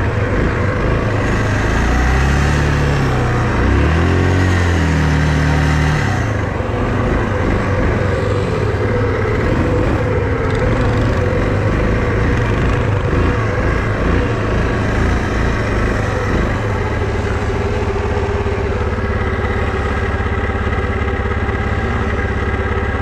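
An all-terrain vehicle engine running under way. Its pitch rises and falls twice in the first six seconds or so as the throttle is worked, then holds a steady drone.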